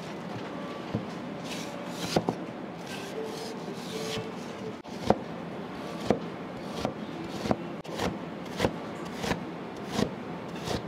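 Chinese cleaver cutting raw pork on a plastic cutting board: a few knocks of the blade on the board while slicing, then from about halfway a regular chopping, about one knock every two-thirds of a second, as the strips are diced. Steady background noise runs underneath.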